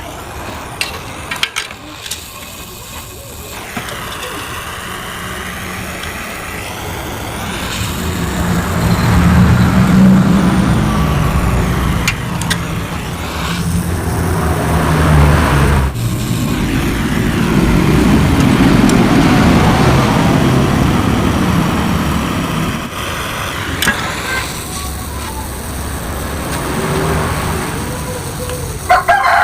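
A motor vehicle engine running, swelling louder twice and easing off. A rooster starts crowing at the very end.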